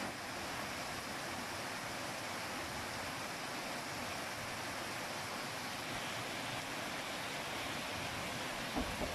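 Heavy rain mixed with hail pelting down: a steady, even hiss, with a couple of brief knocks near the end.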